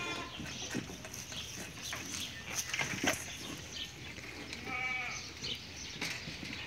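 Goats bleating: one bleat right at the start and another about five seconds in, with scattered short knocks and shuffling from the herd between the calls.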